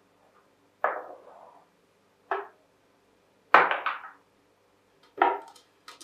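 Glass jars and wooden-lidded canisters being picked up and set down on a kitchen countertop: about five separate knocks and clinks, the loudest a quick cluster of strokes about halfway through.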